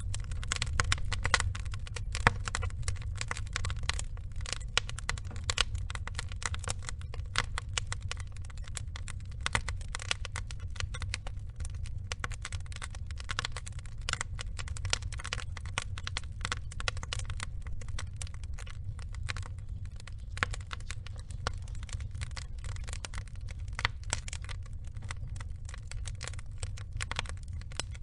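Burning logs crackling and popping steadily, with a low rumble of the fire underneath.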